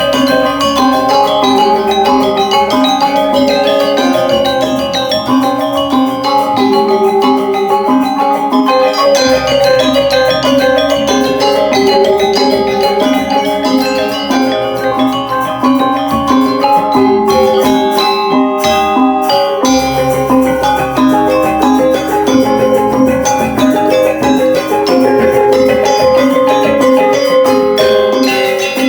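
Balinese gamelan music: bronze metallophones and gongs playing a dense melody over a steady repeating pattern.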